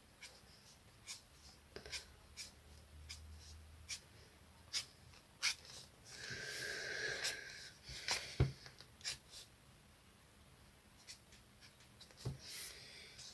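Coloring on paper: scattered small taps and short scratchy strokes of a coloring tool, with a longer rustling stroke about six seconds in.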